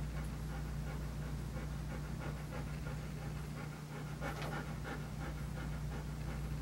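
German Shepherd panting with its tongue out: quick, rhythmic breaths, one a little louder a little past halfway, over a steady low hum.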